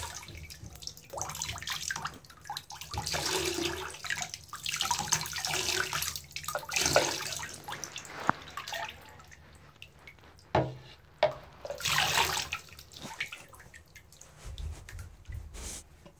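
Water poured from a plastic cup splashing into a bathtub in several uneven spells, with a few knocks from handling.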